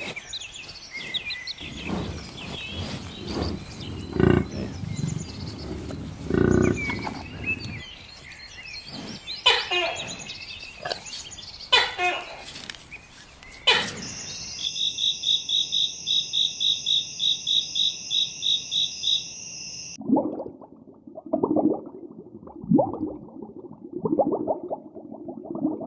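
A run of different animal calls: high chirping bird-like calls, then a fast, regular, high pulsing trill for about five seconds, then a string of lower calls near the end.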